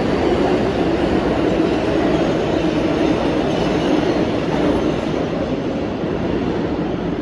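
New York City subway train running through the station at speed without stopping: a steady rumble of wheels on rail that eases a little near the end as the last cars clear.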